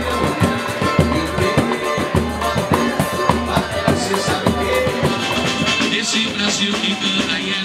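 Latin American band music: a drum kit and hand drums keep a fast, steady beat under pitched instruments.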